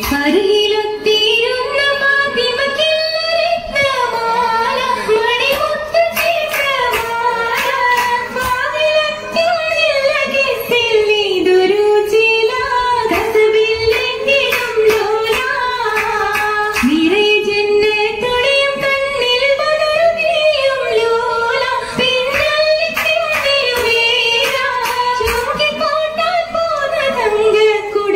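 Oppana song sung by a group of girls' voices in repeating, rising-and-falling melodic phrases, kept in time by the dancers' hand claps.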